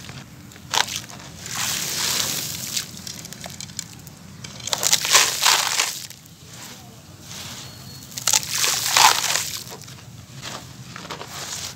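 Muddy water sloshing in a basin as a hand stirs it, then gritty crumbled cement being poured in, in about four hissing pours.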